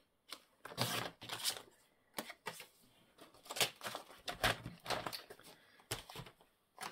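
Paper rustling and crinkling with small knocks, in irregular clusters, as paper craft materials are handled on a table.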